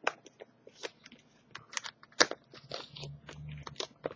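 Packaging of a phone battery case being handled as its contents are taken out of the box: irregular small clicks and crackles, the loudest about two seconds in.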